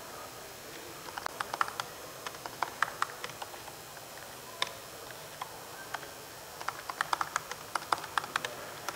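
Typing on a computer keyboard: two quick runs of keystrokes, with a few scattered key taps in the pause between them.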